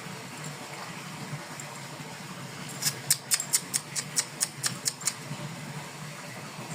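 A quick run of about ten sharp clicks, roughly five a second, lasting about two seconds, over a steady low hum.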